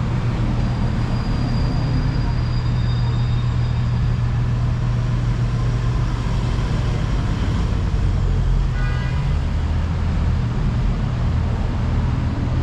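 Street traffic, with a vehicle's engine running close by as a steady low hum. A brief high-pitched squeal about nine seconds in.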